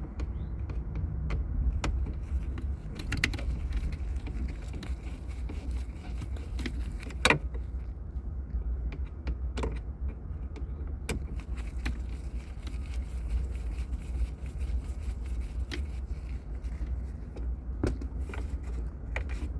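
Scattered metallic clinks and plastic clicks of hand tools working loose the screws of a car's center console, with one sharper knock about seven seconds in, over a steady low hum.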